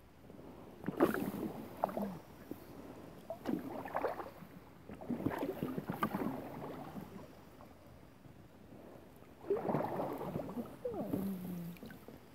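Paddle strokes from a Grabner Holiday 2 inflatable kayak on calm water: splashing and dripping in four bursts a couple of seconds apart.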